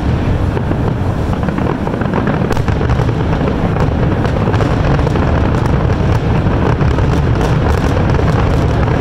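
Aerial fireworks going off in a rapid, unbroken barrage: a continuous low rumble of shell bursts overlaid with dense crackling.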